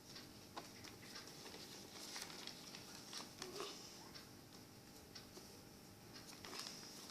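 Faint, irregular rustles and soft ticks of a sheet of paper being handled and creased while folding a paper airplane.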